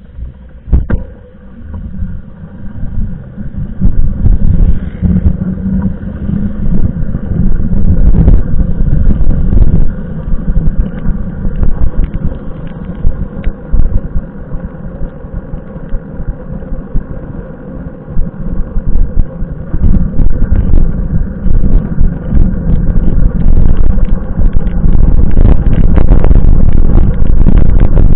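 Wind buffeting and road rumble on a handlebar-mounted camera as a mountain bike rides along a wet street. It is a loud, low, muffled rumble that surges and clips, and it grows steadier and heavier near the end.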